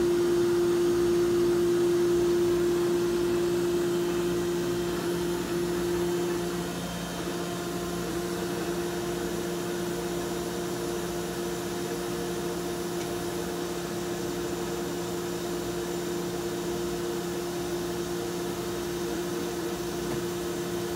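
Vemag HP10C vacuum stuffer running with a steady machine hum. A strong steady whine over the hum drops away about six seconds in, leaving a quieter, even hum.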